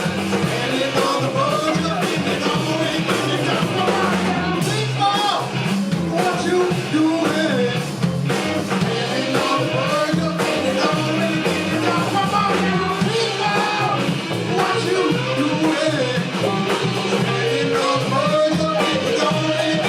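Live rock band playing, with a singer's voice over the band.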